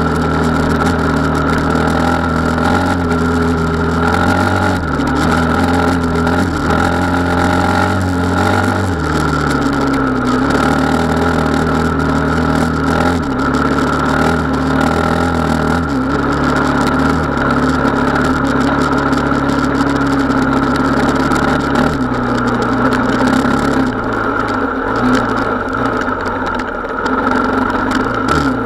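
Gas Gas 450 Wild HP enduro motorcycle's single-cylinder four-stroke engine running under load on the move. Its note drops and rises several times with throttle changes, about a third of the way in and again near the end.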